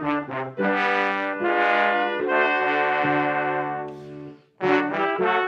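Brass ensemble of trumpets and trombone with piano playing: a few short notes, then a long held chord that dies away about four seconds in. Music starts again shortly before the end.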